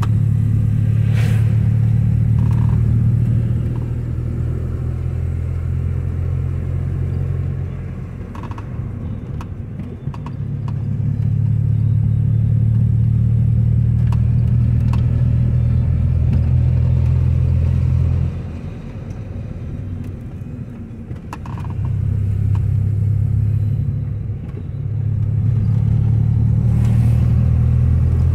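Car interior noise while driving: a steady low engine and road drone that eases off several times and comes back, with a few faint light clicks.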